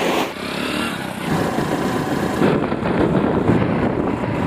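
Motorcycle engine running as the bike rides along a road, with steady road and wind rush.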